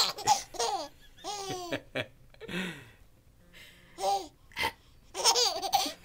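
A baby laughing in several short bursts of giggles, with pauses between them.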